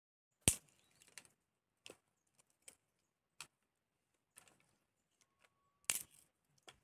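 Irregular clicks and clinks of small hard objects being handled, about a dozen over the stretch, with two louder clatters, one about half a second in and one near the end.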